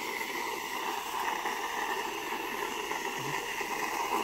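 Whipped cream spraying from an aerosol can into a bowl: a steady hiss of gas and cream from the nozzle.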